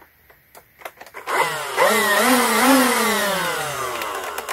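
NERF Rival Perses MXIX-5000 motorized blaster's battery-powered flywheel motors spinning up with a whine a little over a second in, wavering as they climb, then falling steadily in pitch as they wind down.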